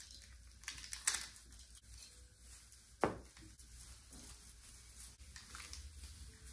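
Artificial Christmas tree being handled during assembly: faint rustling, a short crackle about a second in and one sharp click about three seconds in.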